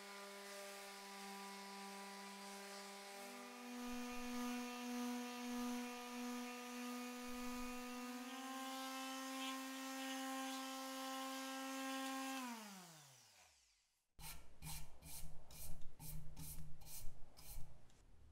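Skil Octo detail sander running against a wooden hatchet handle, a steady motor hum whose pitch steps up slightly about three seconds in and again around the middle. About twelve seconds in it is switched off and its hum falls away as it winds down. Then comes a quick run of about eight sharp, loud clicks or knocks.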